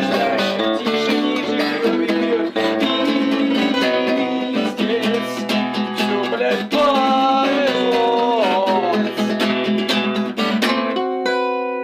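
Acoustic guitar being strummed in a fast, steady rhythm, ending on a single held chord near the end.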